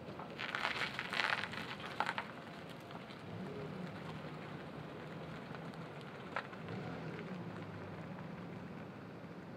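A vehicle rolling slowly across an asphalt parking lot: scattered crackling from the tyres in the first couple of seconds, then a low, steady engine hum.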